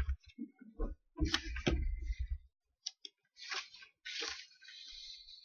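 Sheets of paper being handled and shuffled close to a table microphone: a few short rustles and clicks, with soft low bumps in the first couple of seconds.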